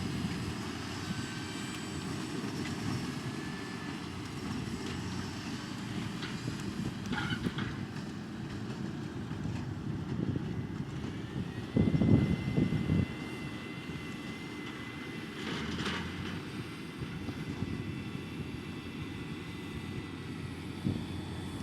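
Fendt 724 tractor running steadily at work with its field implement, a continuous low engine drone. A louder rush of noise comes about halfway through, and brief higher hisses come a few seconds before and after it.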